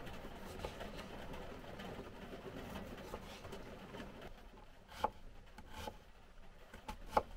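A kitchen knife slicing cherry tomatoes on a wooden cutting board over a steady rushing background, which drops away about four seconds in. After that come a few sharp knocks of the blade on the board as garlic is chopped, roughly a second apart.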